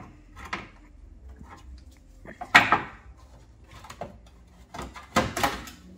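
Knocks and clatter from a car body part being handled and set down. There are two louder clattering knocks, about two and a half seconds in and again after about five seconds, with lighter knocks between them.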